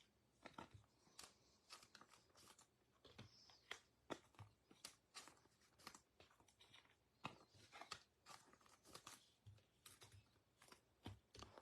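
Faint, scattered crinkling and clicking of trading cards and their packaging being handled, with a short rustle every half second or so.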